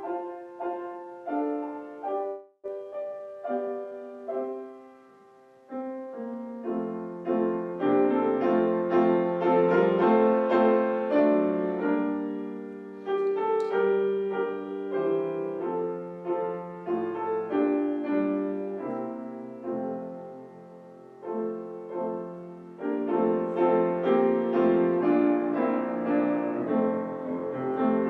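Solo piano playing slow music, single notes at first with short pauses, then fuller chords from about six seconds in. It eases off briefly past the middle and builds again near the end.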